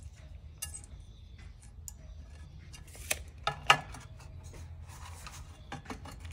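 Scattered light clicks and taps of hard objects, with three sharper knocks a little after three seconds in, over a low steady hum.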